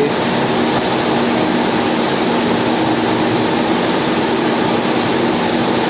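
Steady loud background noise, an even rush with a faint low hum running under it, like machinery running nearby.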